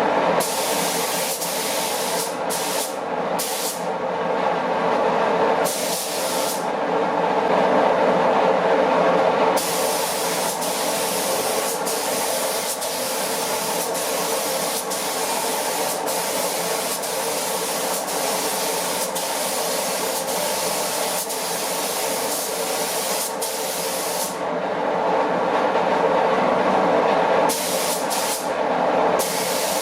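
Automotive spray gun applying clear coat to a car body, its hiss cutting in and out with the trigger: short bursts, then one long pass of about fifteen seconds in the middle, then more bursts near the end. A steady drone runs underneath.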